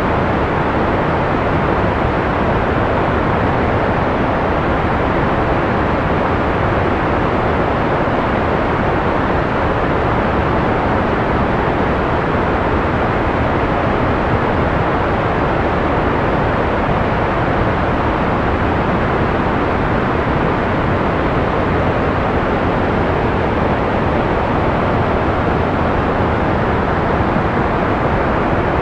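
Steady analog white noise: an even, unbroken hiss with its top end dulled, most of its energy in the lows and middle and little above the treble.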